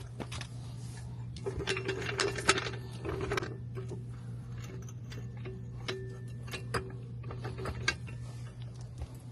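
Hand tools working on the car: sharp metallic clicks and clinks, with a dense run of rapid clicking in the first few seconds, over a steady low hum.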